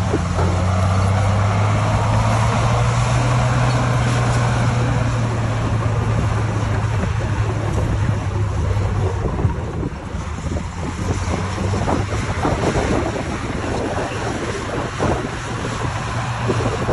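Diesel engine of heavy earthmoving equipment running with a steady low drone that eases off about ten seconds in, followed by scattered knocks and clanks.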